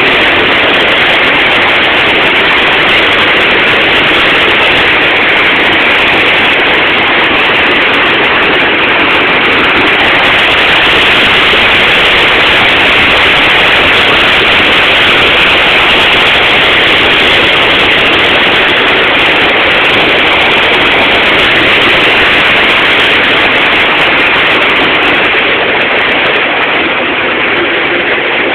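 Steady, loud rush of river water pouring over a weir.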